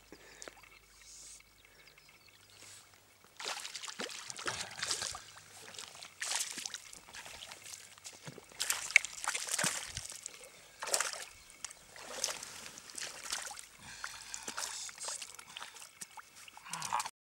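Shallow water splashing and sloshing in a run of irregular bursts as a hooked fish is drawn in close and grabbed by hand, starting a few seconds in.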